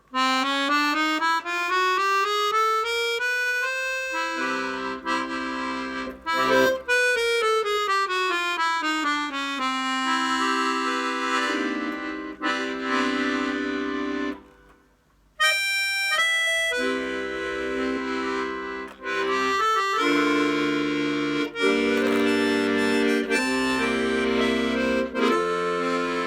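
Hohner Student 72 piano accordion played after repair: a rising run up the treble keys, then a falling run over bass notes, then sustained chords with bass. The playing breaks off briefly a little past halfway, then resumes with a high chord and more chords with bass.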